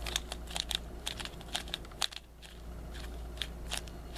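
Plastic clicks of a Valk 3 3x3 speedcube being turned by hand, layer after layer, in quick irregular succession with a short pause about two seconds in. The cube is freshly lubed and tensioned by the shop.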